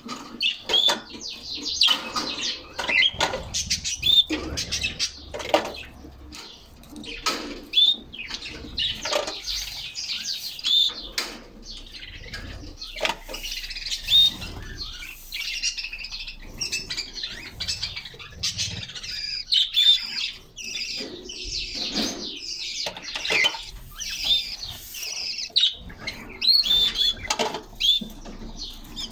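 Caged canaries chirping and singing in short high trills, with frequent wing flutters and small knocks as they hop about the cage.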